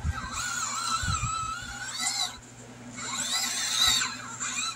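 Electric motor of a 1/18-scale Furitek Fury Wagon RC crawler whining in two spells of about two seconds each, its pitch wavering up and down as it crawls over rocks.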